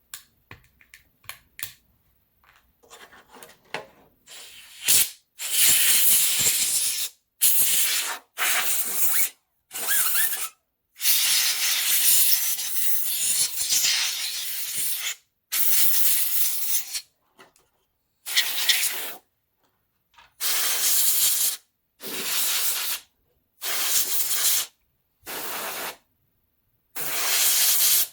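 Aerosol electrical contact cleaner sprayed in about a dozen hissing bursts, some short and some a few seconds long, starting about four seconds in, to flush dirt and gunk out of a controller's sticky buttons and fans. Light clicks and handling taps come before the spraying.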